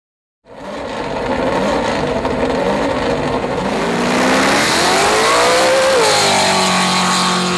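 Monster Energy Trophy Truck #77's engine revving, then accelerating hard with the pitch climbing for a few seconds. About six seconds in the pitch falls and it runs on steady at high revs.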